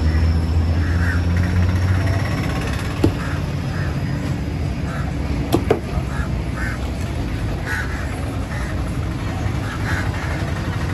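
A heavy curved cleaver chopping through tuna on a wooden block: a sharp knock about three seconds in and two more in quick succession about halfway through. Behind it is steady background noise with a low hum early on and short repeated calls.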